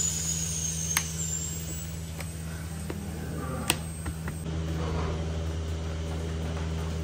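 Steady low hum of milking-parlour machinery, with two sharp clicks of switches being flipped on the control boxes, about a second in and near four seconds in. The hum grows a little stronger about four and a half seconds in.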